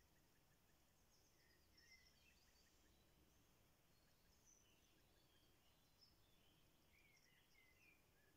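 Near silence, with faint, scattered songbird chirps and short trills.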